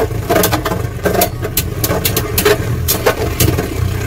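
Two Beyblade Burst spinning tops, Helios Volcano and Brave Valkyrie, whirring as they spin and clashing again and again in a plastic stadium: an irregular run of sharp clacks over a steady low whir.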